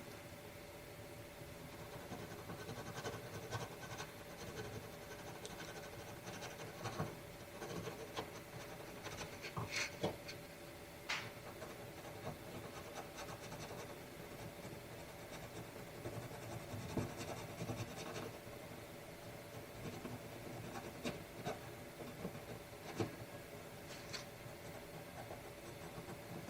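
Caran d'Ache Supracolor watercolor pencil scratching across Yupo paper in short, uneven shading strokes, with a few sharper ticks of the pencil. A faint steady hum runs underneath.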